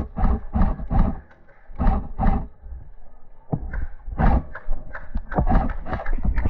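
Running footsteps: heavy thuds at about three to four a second that break off after about a second, two more a moment later, then a run of irregular sharp clicks and knocks.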